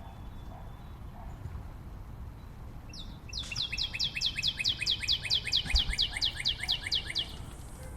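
A songbird singing a fast trill of about twenty identical high notes, each sliding down in pitch, about five a second, starting about three seconds in and lasting about four seconds. A low background rumble runs underneath.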